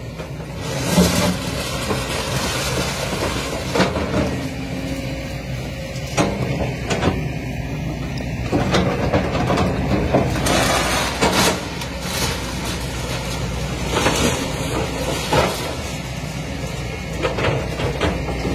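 Kobelco hydraulic excavator's diesel engine running under load while its bucket crushes and drags sheet-metal roofing and timber, with repeated scraping and crashing noises at irregular times over the steady engine drone.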